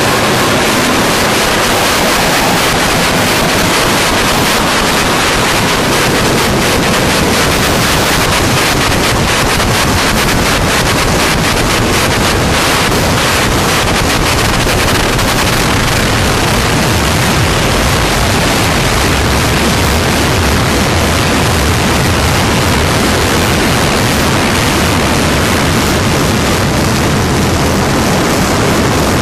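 Japanese harsh noise music: a loud, unbroken wall of hiss and rumble filling the whole range from deep lows to high treble, with a crackling grain through the middle stretch.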